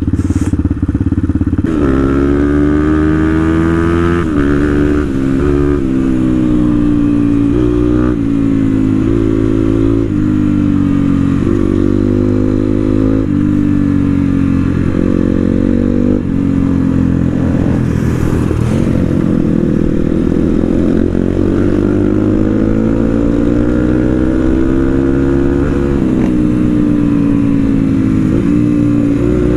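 Motorcycle engine running on the move, its pitch climbing and dropping every few seconds with the throttle and gear changes.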